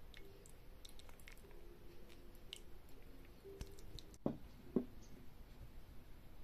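Coffee dripping through a paper drip bag into a mug: faint, scattered small drips and ticks. About four seconds in, two soft knocks half a second apart.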